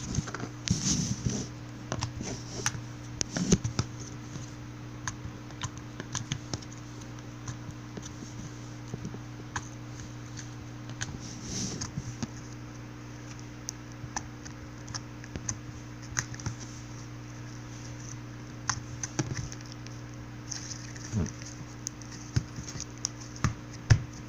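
Fingers poking a soft clear-glue slime, giving irregular small clicks and pops, thicker near the start and the end, over a steady low electrical hum.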